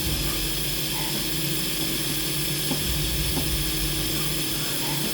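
4-axis CNC milling machine running: a steady hiss over a steady low hum, with a few faint ticks.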